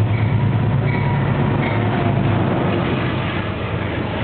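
Amtrak passenger train, a Genesis P32AC-DM diesel locomotive hauling Amfleet I cars, passing through at speed: a loud, steady rolling rumble of wheels on rail, with a low drone that fades after about two seconds.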